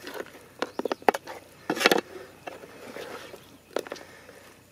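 Metal ladle stirring chicken curry in a metal pot: a series of clinks and scrapes against the pot, with a longer scrape about two seconds in.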